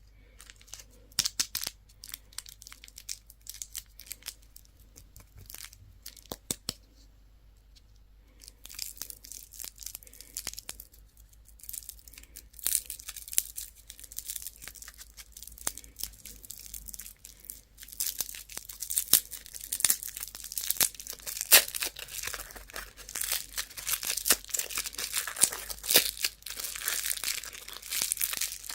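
Candy wrappers being torn open and crinkled by hand. It starts with a few scattered clicks and rustles, then settles into steady crinkling that grows louder and busier about two thirds of the way through.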